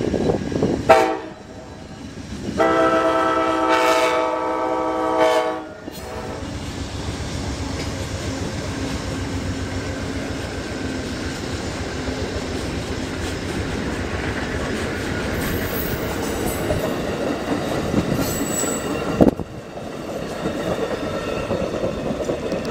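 Amtrak passenger train's locomotive horn sounding for a grade crossing, a short blast and then a long one of about three seconds. The horn gives way to the steady rumble and clickety-clack of the passenger cars rolling past over the crossing, which drops off suddenly near the end.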